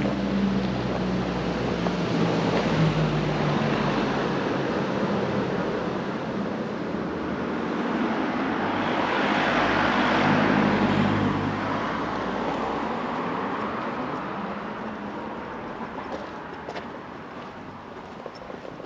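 Road traffic passing: engine hum and tyre noise that swell to their loudest about ten seconds in, then fade away.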